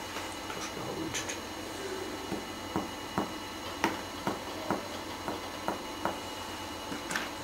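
Finger-on-finger chest percussion over the lung apex above the collarbone, the striking finger tapping the plexometer finger laid on the chest. It gives a series of short dull taps, about two a second.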